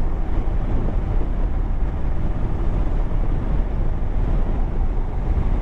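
Motorcycle on the move: steady engine and road noise under heavy wind rush on the microphone.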